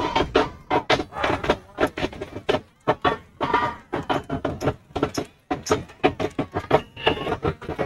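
Stadium sound at a night high school football game: rapid drumming with bits of pitched music and crowd voices, loud and cluttered.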